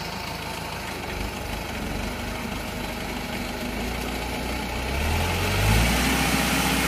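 Rice combine harvester's engine running steadily as the grain-laden machine crawls through deep mud, getting louder about five seconds in.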